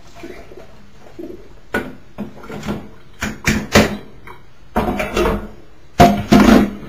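Kitchen clatter of a utensil and cookware knocking and clanking against a pot and bowl as drained sauerkraut is transferred into the bowl: a run of irregular sharp clanks, the loudest ones near the end.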